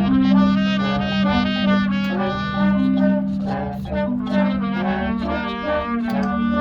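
High school marching band playing: brass melody with woodwinds, over a held low note and scattered drum hits.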